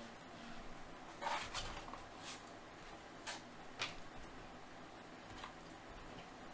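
Faint handling sounds of trading cards and a card box: a few short rustles and light clicks, clustered in the first four seconds.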